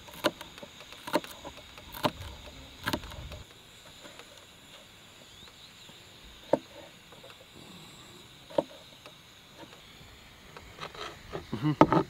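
Large kitchen knife chopping onion and then tomatoes on a wooden cutting board: sharp single knocks about a second apart, a few sparse ones in the middle, and a quick run of chops near the end. A steady high-pitched buzz of meadow insects runs underneath.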